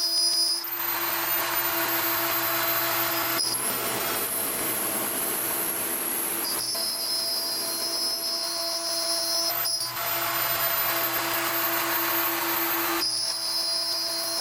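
Sorotec Basic Line 1005 CNC router milling wood: a steady high spindle whine, with the noise of the bit cutting starting about half a second in, changing briefly every three seconds or so, and stopping near the end.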